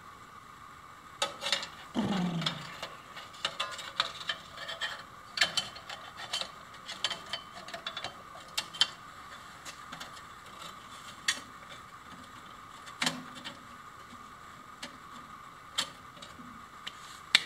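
Scattered metallic clicks, clinks and knocks from a hand tool working at the lower wheel of a homemade metal bandsaw frame while the frame is handled, with a short scraping clank about two seconds in. The clicks are thickest in the first half and thin out later.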